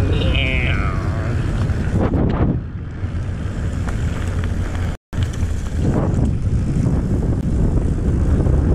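Wind buffeting the camera's microphone, with tyre rumble from a mountain bike rolling fast downhill. There is a short falling squeal near the start, a couple of knocks from bumps, and a brief dropout about five seconds in.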